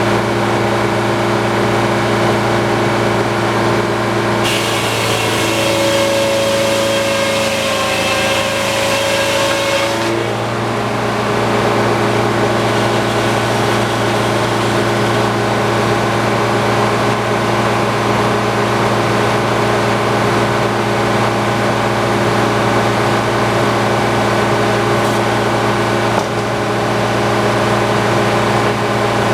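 Antique sawmill running with its engine at a steady pitch. From about four seconds in, a bright hiss and a higher ringing tone join it for some five seconds and then stop abruptly, as the blade cuts through the log.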